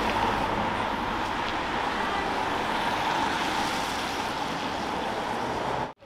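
Steady rushing noise with a low rumble, cutting off abruptly near the end.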